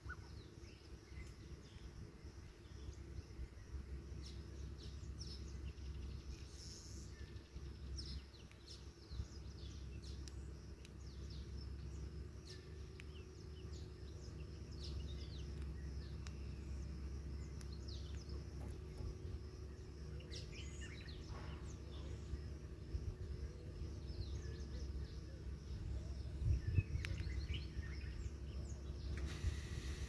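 Outdoor ambience: a steady low rumble with many short, scattered bird chirps and calls.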